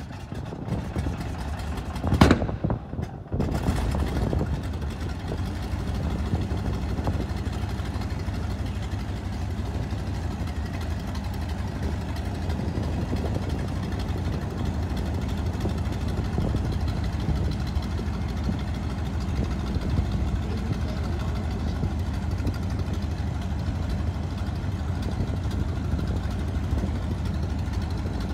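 CAC Wirraway's nine-cylinder Pratt & Whitney R-1340 Wasp radial engine at a cold start: a loud cough about two seconds in, then the engine catches and settles into steady running at idle.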